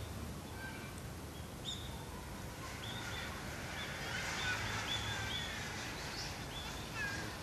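Wild birds calling: many short, high chirps, several sliding downward in pitch, coming thicker from about three seconds in over a steady outdoor background hiss.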